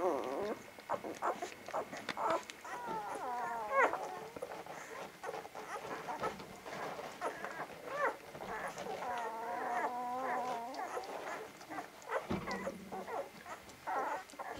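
Newborn vizsla puppies whimpering and squeaking as they nurse, with two longer wavering whines, one about three seconds in and one around ten seconds, among many small clicks and smacks.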